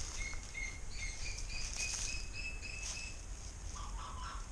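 A bird calling in the background: a run of short whistled notes, about four a second, creeping slightly up in pitch for about three seconds, over a steady high insect hiss.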